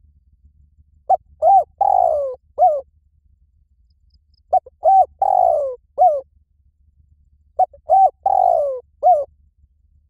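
Spotted dove cooing: three matching phrases about three seconds apart, each a couple of short coos followed by a longer falling coo and a final short note.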